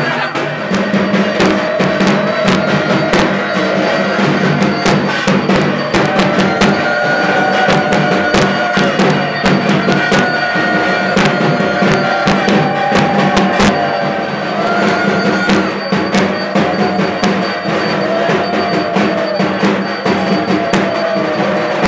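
Temple aarti drumming and bell-ringing: dhak drums and clanging metal bells struck rapidly and without a break, with long held tones that rise and fall over them, each lasting a few seconds.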